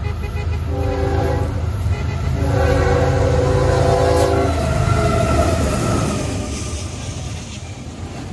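Diesel freight locomotive sounding its multi-chime air horn, a short blast about a second in and then a long one, over the low rumble of the passing train. The train's sound fades over the last couple of seconds.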